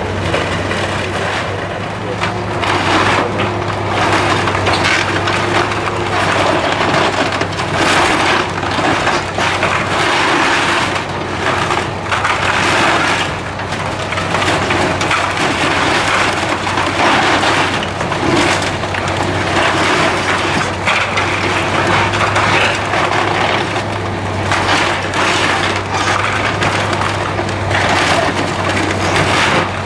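Timbers of an old wooden mill building cracking, splintering and crashing as it is torn down, with a demolition machine's engine running steadily underneath.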